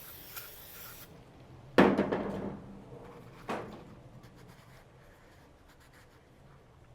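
Aerosol brake cleaner spraying in a short hiss that cuts off about a second in, cleaning the aluminium thermostat housing. Then two knocks, the first loud with a short ringing tail and the second softer.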